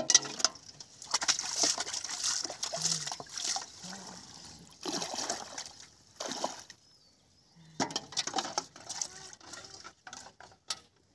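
Shallow water splashing and sloshing in irregular bursts as a person wades through it and dips a metal basin in, with a short lull near the middle.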